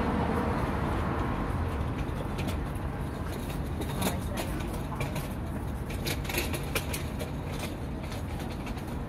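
Steady low background rumble, with a scatter of light clicks and ticks through the middle.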